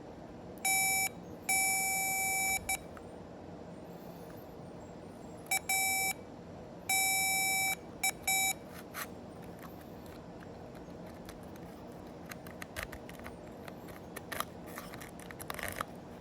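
Continuity tester beeping in a steady tone, in a string of short and longer beeps during the first half as its probe is touched to harness connector pins; each beep signals a closed circuit between the probe and that pin. Light clicks of handling follow in the last few seconds.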